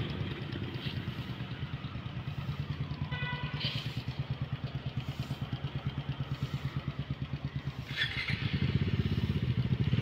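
Motorcycle engine idling with an even, rhythmic pulse, growing a little louder near the end. A short higher-pitched tone sounds about three seconds in.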